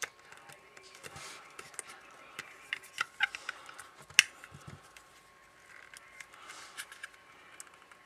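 Plastic clicks and light knocks from a Baofeng UV-5R handheld radio's case being pried and flexed by hand as the tight-fitting housing is worked loose. The sharpest click comes about four seconds in.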